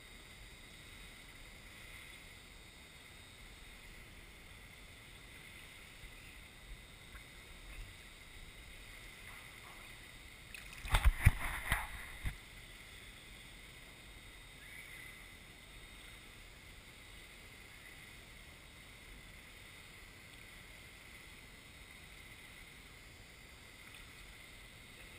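Steady hiss of an indoor pool hall. About eleven seconds in comes a short cluster of water splashes and knocks against the camera at the water's surface.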